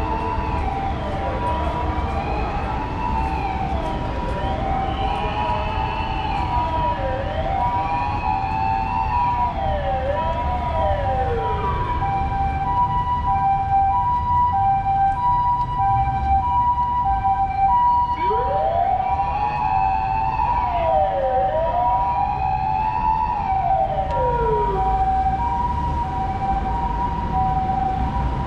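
Emergency vehicle siren sounding a steady two-note hi-lo pattern, the pitch pattern of a Japanese ambulance siren. A wailing siren that sweeps up and down in pitch about once a second and a half plays over it for the first half, stops, and comes back about two-thirds of the way in, over the rumble of city traffic.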